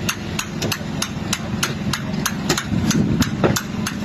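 Hammer blows in a steady rhythm, about three a second, over a steady low hum.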